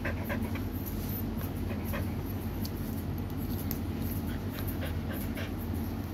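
Dog panting while its ear hair is worked on, with quick faint clicks from the groomer's scissors and forceps, over a steady low hum.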